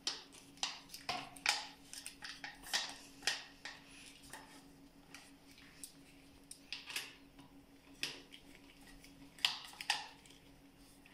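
Metal clicks and clinks of a folding multi-tool Allen key set turning a bolt with its number 5 hex key, the tool's folded blades knocking together. The taps come in scattered runs, busiest in the first few seconds and again about seven and nine and a half seconds in, over a faint steady hum.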